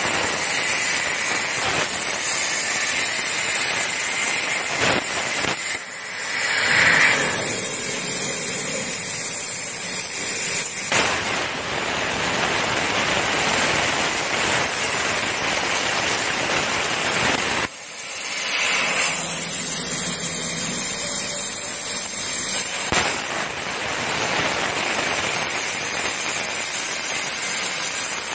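CNC plasma cutter's torch cutting steel plate: a loud, steady hiss of the plasma arc and its air jet. The sound drops and builds back up twice, about six seconds in and again about eighteen seconds in.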